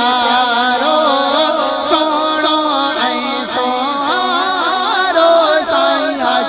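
A man singing a Sindhi devotional manqabat, a long held melody with wavering ornaments.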